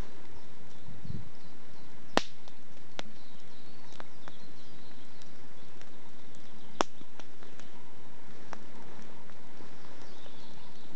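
A campfire of birch logs burning, crackling with scattered small pops and two sharp loud pops about two and seven seconds in.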